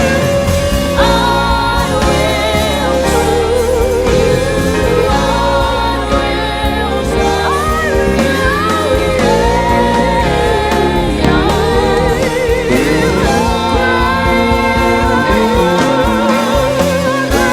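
Live gospel worship music: singers holding long notes with vibrato over a band with a steady bass.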